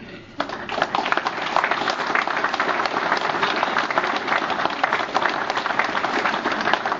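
Audience applauding, starting suddenly about half a second in and keeping up steadily.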